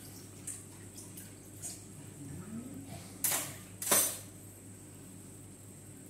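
Broth boiling in an aluminium wok: a steady bubbling with small pops, and two louder pops a little over three and about four seconds in.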